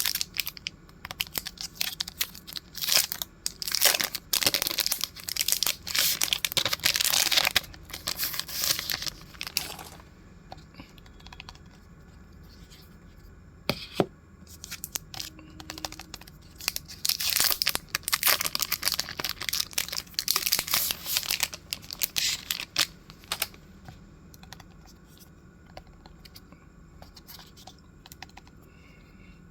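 Packaging being torn open and crinkled by hand, in two spells: one over the first ten seconds or so and another starting about halfway through, with a single sharp click between them.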